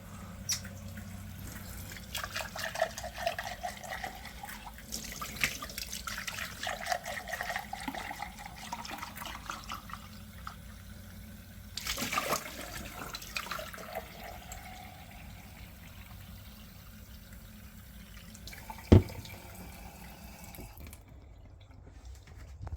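Cold water running from a newly fitted kitchen tap, fed through a Water2 filter pod. A single sharp knock sounds near the end.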